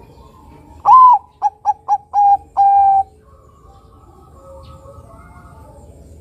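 Bangkok-type zebra dove (perkutut) singing one cooing phrase about a second in: a loud opening note, three quick short notes, then two longer held notes, all over within about two seconds.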